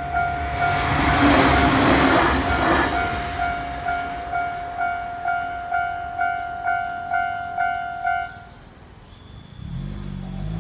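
Japanese railroad-crossing alarm clanging at a little over two strikes a second while a JR 815-series electric train rushes past, its noise loudest in the first few seconds. The alarm stops about eight seconds in, and a low hum starts near the end.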